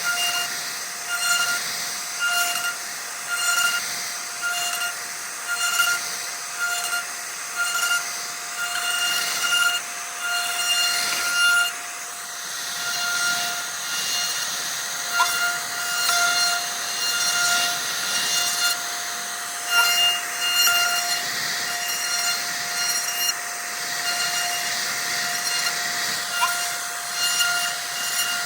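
CNC router spindle whining at a steady high pitch as its bit cuts into wood, the cutting noise rising and falling in a regular rhythm as the tool sweeps back and forth.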